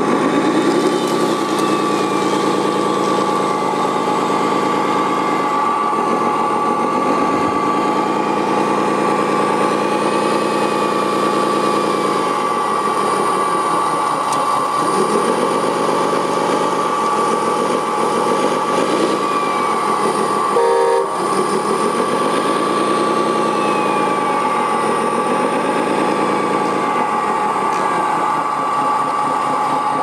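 Radio-controlled Komatsu wheel loader working: its engine sound revs up and down again and again, over a steady high whine. A brief sharp noise cuts in about two-thirds of the way through.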